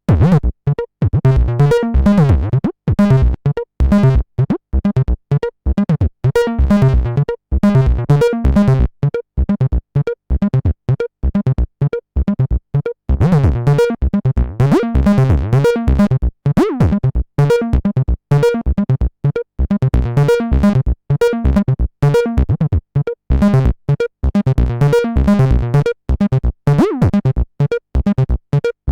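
Behringer TD-3-MO acid bass synthesizer playing a fast repeating sequence of short staccato notes. The brightness of the notes shifts up and down as the filter is modulated.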